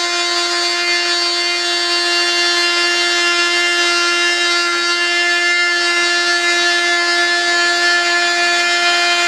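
Corded handheld rotary tool running at a steady high whine while it cuts through the edge of a fiberglass part, trimming off the flange along the parting line.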